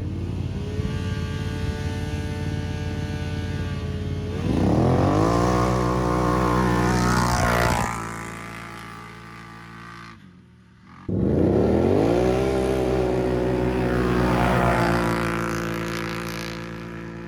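ATV engine running at a steady pitch, then revving up as it accelerates about four seconds in and easing off. After a brief drop-out near the middle it revs up again, holds, and fades toward the end.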